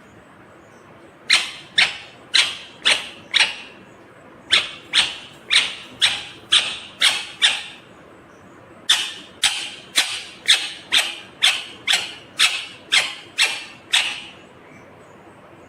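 Ringneck parakeet calling: three runs of short, loud, repeated calls, about two a second, the last run the longest.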